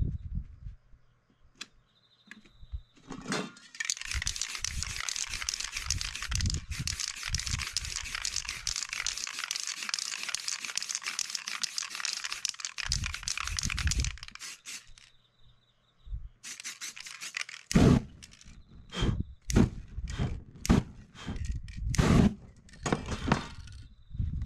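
Aerosol spray paint can spraying in one long, steady hiss for about ten seconds as black paint goes over a stencil. A few seconds later comes a run of short, sharp crinkling and tearing sounds as the stencil is handled and peeled off the canvas.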